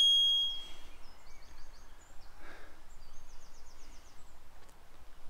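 A bright electronic chime with the on-screen subscribe-bell animation, fading out within about a second. Then two short, rapid high bird trills a second or so apart, over faint outdoor background noise.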